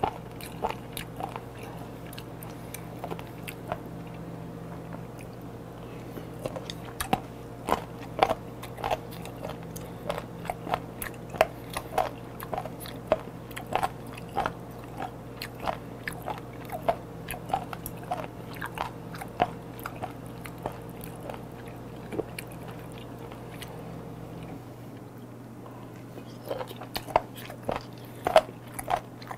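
A person chewing raw seasoned chicken feet, crunching through cartilage and small bones with irregular crunches about every half second. The crunching thins out for a few seconds near the end, then starts again.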